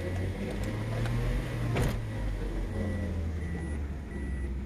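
Toyota Noah engine and road noise heard inside the cabin while driving in D, a steady low hum at about 2,000 rpm. One sharp knock sounds a little under two seconds in.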